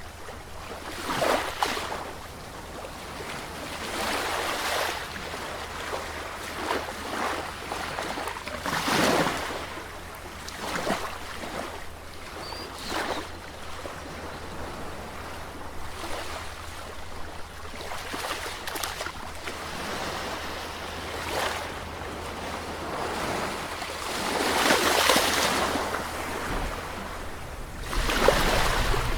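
Sea waves breaking and washing in, a steady surf hiss with a louder surge every few seconds, the biggest near the end.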